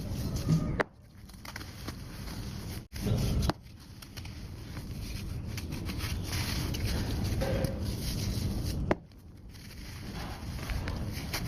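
Sand floor crumbling and breaking up, a steady gritty crackle and scrape that cuts off and restarts abruptly a few times.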